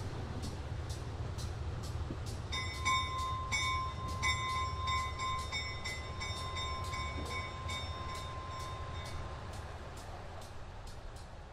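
Small diesel switcher locomotives running with a steady low rumble and a regular ticking. About two and a half seconds in, a locomotive bell starts ringing, about two strokes a second, and it fades away near the end.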